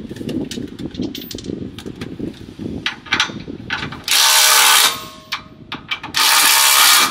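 A cordless power tool runs in two short bursts of just under a second each, about two seconds apart, driving a socket on an extension to snug up the side step's middle mounting bolts. Before the bursts come scattered sharp clicks of the socket and metal hardware.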